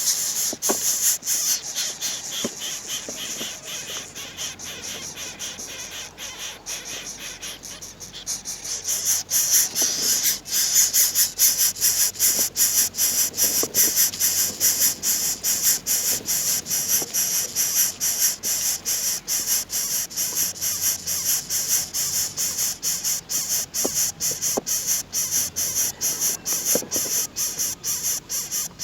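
A chorus of insects trilling, a high-pitched pulsing buzz that grows louder about nine seconds in and then keeps on steadily.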